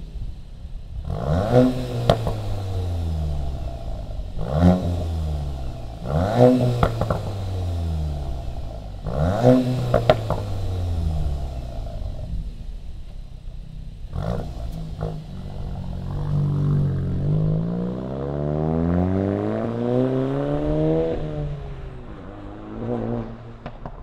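VW Golf GTI (MK8) turbocharged four-cylinder free-revving at a standstill through its exhaust. It blips quickly four times, each rev rising and dropping straight back. Later it gives one longer rev that climbs for several seconds before falling back to idle.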